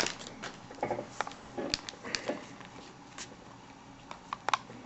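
Baseball trading cards being handled and flipped through by hand: scattered light clicks and soft flicks, a few at a time, over faint room hiss.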